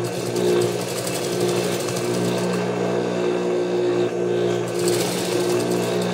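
Juki industrial sewing machine stitching layered fabric: a steady motor hum with a fast needle chatter that eases off for a moment in the middle and picks up again.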